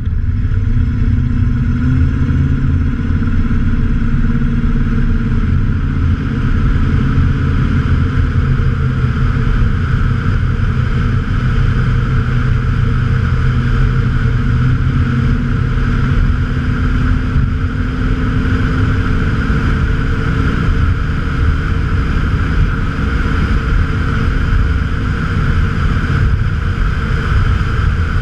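Ford 302 (5.0 L) V8 running with its electric QTP exhaust cutout open, so the exhaust dumps out ahead of the cat and muffler. It is a loud, steady drone while the truck cruises at an even speed.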